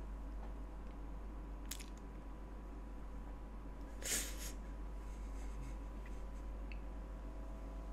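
A person's breath close to the microphone: a faint short puff near 2 s and a louder one about 4 s in, over a steady low electrical hum.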